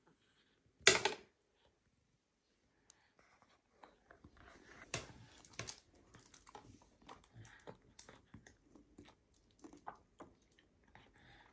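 A toddler eating and drinking in a high chair: chewing, small clicks and knocks, and a paper juice box being handled and sipped through a straw. One short loud noise about a second in is the loudest sound.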